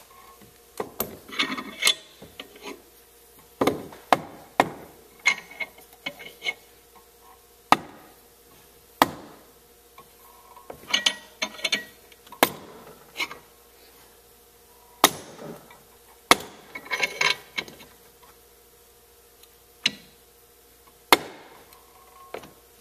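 Irregular sharp metal clanks and knocks, some single and some in short rattling clusters, from a bench vise and 32 mm socket pressing a new sealed bearing into the cast hub of a John Deere 50-inch mower-deck spindle until the snap-ring groove clears.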